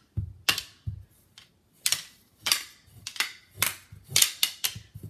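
Thin plastic knee-hockey sticks clacking against each other and the puck in a scramble: a quick, irregular run of sharp clacks.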